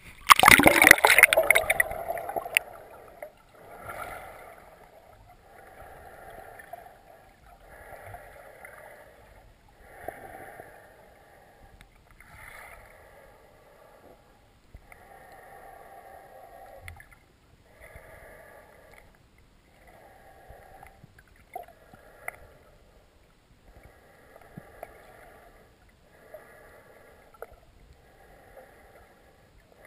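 Splash of a camera plunging through the water surface, then muffled underwater swishing that swells and fades about once every two seconds, as heard from inside a waterproof camera housing.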